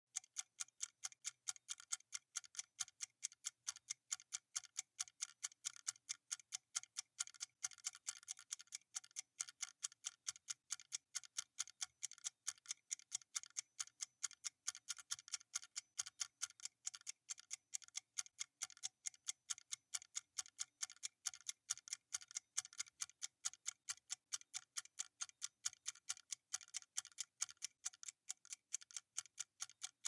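Clock-ticking sound effect: a fast, even tick-tock that keeps on without a break, several ticks a second.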